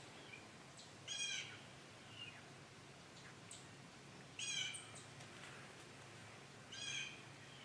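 A bird calling three times, each call short with a few seconds between them.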